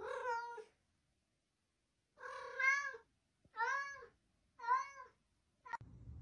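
Domestic cat meowing: one meow, then after a pause three more about a second apart, each rising and then falling in pitch, and a short clipped call near the end.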